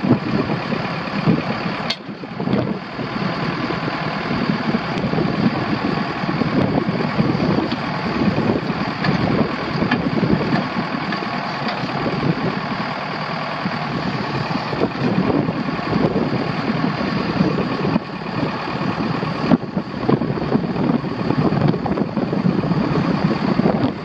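Case 580 Super M backhoe's four-cylinder diesel engine running steadily.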